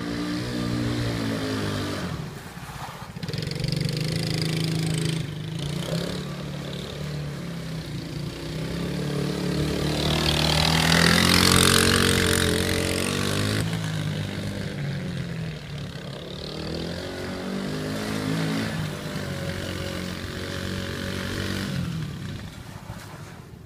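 Tao Tao TForce 110cc youth ATV's small single-cylinder four-stroke engine running as it is ridden, its pitch rising and falling with the throttle. It grows loudest about halfway through as the quad passes close by, then fades as it pulls away.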